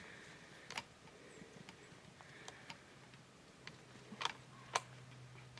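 Faint, irregular sharp clicks and snaps, roughly one a second, the loudest two close together a little after four seconds in. A faint low steady hum sets in about three seconds in.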